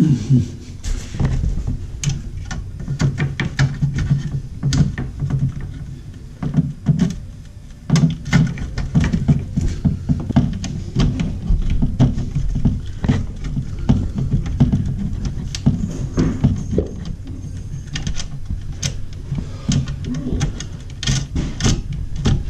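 Irregular clicks, taps and knocks of hands handling an under-cabinet LED light fixture and its flexible metal conduit while fitting it overhead.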